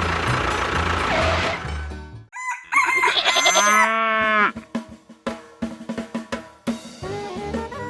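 A rooster crows once, loudly, about two and a half seconds in, just after a steady motor-like running noise stops. A string of sharp clicks follows, and music starts near the end.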